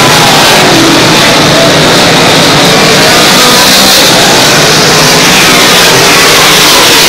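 A field of big-block V8 dirt modifieds racing at full throttle. Engine pitches rise and fall as cars pass close by the grandstand. Very loud throughout.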